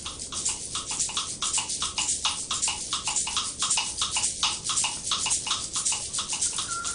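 An animal call: a rapid, even run of harsh, clicking pulses, about five a second, kept up without a break.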